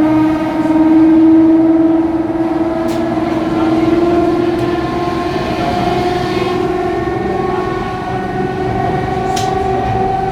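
Electric train car C7396's traction motors and wheel gears giving a loud pitched growl that slowly rises in pitch as the train gathers speed. The growl comes from worn traction motor and/or wheel gears, where the helical gears of these cars should give only a hum. A couple of brief clicks sound over the running noise.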